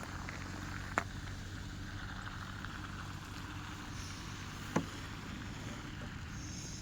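Car engine running at a steady idle, a low even hum, with two short sharp clicks: one about a second in and one just before five seconds.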